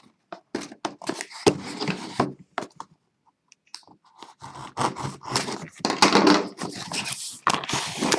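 A tablet's retail box being opened: packaging tearing, scraping and crinkling in irregular bursts, with a pause about two and a half seconds in and busier rustling after it.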